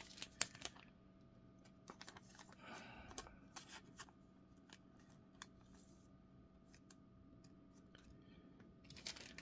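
Faint crinkles and small clicks of thin plastic penny sleeves as trading cards are slid into them, with a short rustle about three seconds in, over a faint steady hum.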